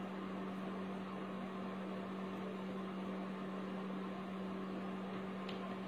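Steady low hum over an even hiss: background room noise with no other event.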